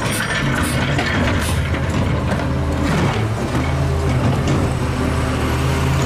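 Natural-gas-powered automated side-loader garbage truck running steadily, with clattering from its hydraulic arm as it grabs and lifts a wheelie bin.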